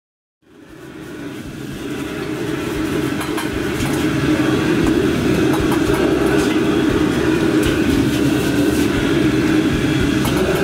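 Restaurant wok burner's gas flame running with a steady roar, fading in over the first two seconds, with a few faint clicks and taps on top.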